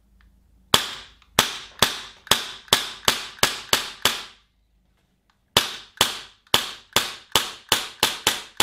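Tokyo Marui USP9 gas blowback airsoft pistol firing crisp, snappy shots: about nine in the first three and a half seconds, then, after a pause of about a second and a half, another string that quickens toward the end.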